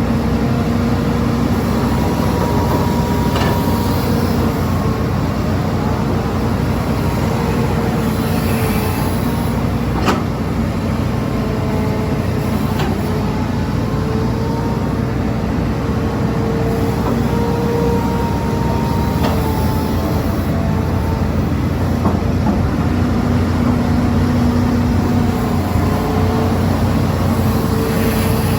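Hitachi Zaxis 210 excavator running steadily, its engine drone overlaid with a whine that shifts up and down in pitch as it works. A few sharp knocks are scattered several seconds apart.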